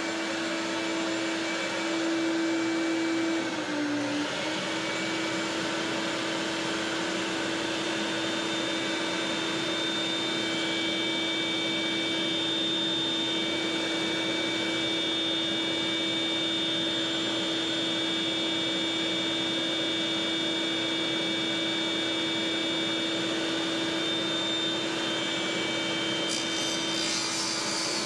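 A steady electric motor drone with one strong low tone and fainter high whines, its pitch dipping briefly about four seconds in.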